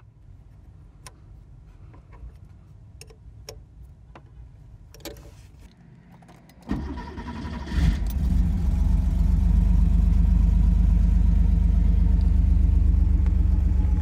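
A few faint clicks of a wrench working the throttle linkage. About seven seconds in, the 1987 Porsche 911's air-cooled flat-six cranks and fires, then settles into a steady idle.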